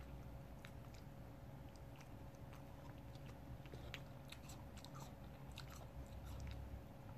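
An old Miniature Schnauzer chewing food: faint, irregular wet clicks and smacks of its mouth.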